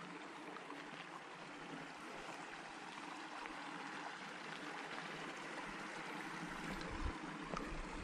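A stream running steadily with a rushing, trickling sound that grows slightly louder toward the end.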